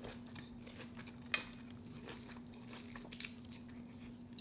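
Close-miked eating: faint crunching bites and chewing of breaded, fried crab balls, with one sharper click about a second and a half in, over a steady low hum.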